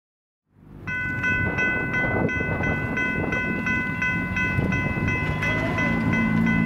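Railroad grade-crossing warning bell ringing about three strikes a second, starting abruptly about a second in as the crossing activates. Beneath it is a low rumble, and a low steady hum grows in near the end.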